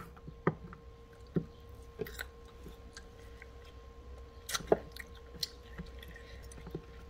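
Chef's knife slicing a fresh green pepper on a wooden cutting board: scattered crisp cuts and taps of the blade against the board, the loudest a pair of knocks about four and a half seconds in. A faint steady hum runs underneath.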